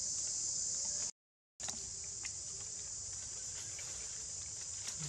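Steady high-pitched insect chorus. It cuts out completely for about half a second a little after the start, then resumes with scattered faint clicks.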